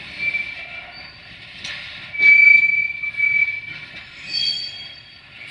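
Freight wagons rolling over station switches: the wheels squeal in high, steady tones, loudest about two seconds in and again near the end, over a rumble of the train, with a couple of sharp clacks as wheels cross the rail joints.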